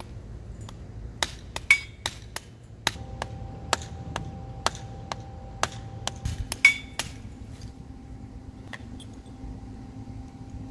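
Hammer blows on a grounding rod stuck in concrete: a run of sharp metallic strikes, about two a second, some of them ringing. The rod is being knocked loose from the corrosion that has bonded it to the cement aggregate.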